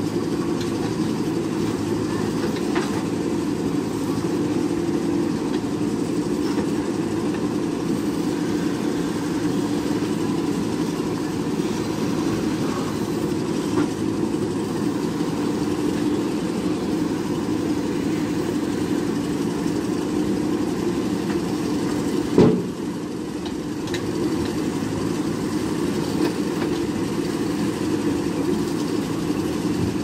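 JCB 3DX backhoe loader's diesel engine running steadily under load as the backhoe arm works. One sharp knock comes about three-quarters of the way through.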